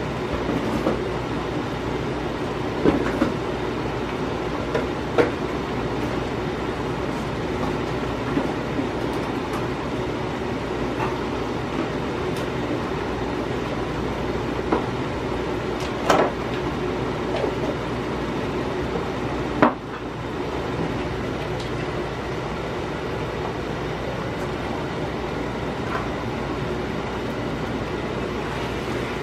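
Thick beef-broth gravy with sour cream, flour and beef bubbling in a pan as it comes to the boil and thickens, giving a few sharp pops over a steady hum.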